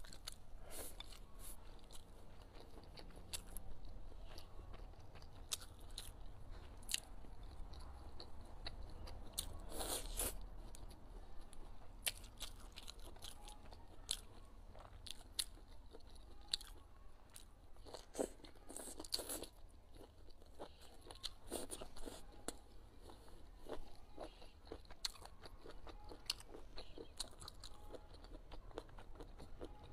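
Close-miked eating: biting and chewing spicy fried squid, heard as many irregular short clicks and crunches with a few louder clusters about ten and eighteen seconds in.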